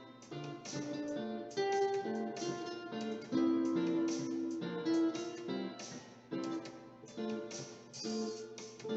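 Background music: a plucked acoustic guitar picking a melody.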